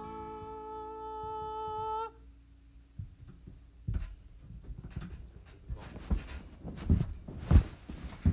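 The song's final held note, sung or hummed, cuts off about two seconds in, and a lower tone lingers for a moment after it. Then come scattered clicks and knocks in a small room, the loudest near the end.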